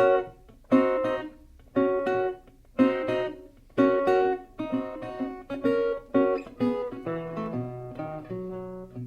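Acoustic blues guitar strumming chords about once a second, each chord ringing out and fading. A lower bass line of notes comes in about seven seconds in.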